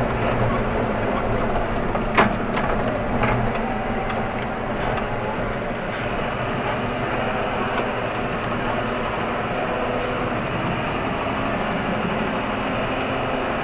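John Deere 7530 Premium tractor's six-cylinder diesel running steadily, heard from inside the cab. Over it, a short high beep repeats about every two-thirds of a second and stops about eight seconds in, once the turn is made: the turn-signal indicator. A single sharp click comes about two seconds in.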